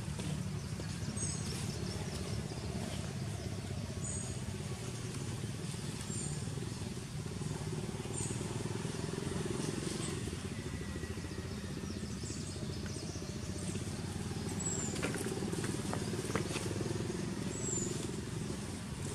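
Steady low outdoor rumble, with several short high chirps a couple of seconds apart.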